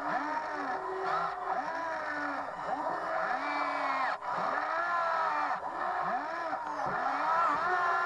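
Huina 580 RC excavator's electric motors whining as the boom, arm and bucket move through gravel, the pitch rising and falling over and over as the sticks are worked.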